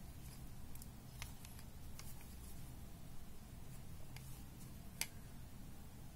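Faint, scattered ticks and rustles of a metal crochet hook working white yarn through single crochet stitches, the clearest tick about five seconds in, over a low steady hum.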